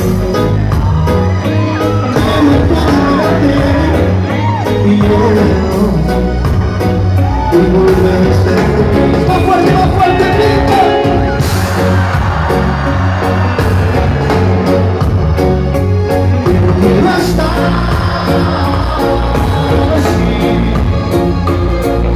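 Live reggae band playing loud, with singing and crowd voices over the music.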